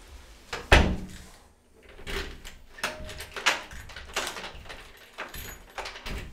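A series of irregular knocks and clunks, the loudest a single bang under a second in.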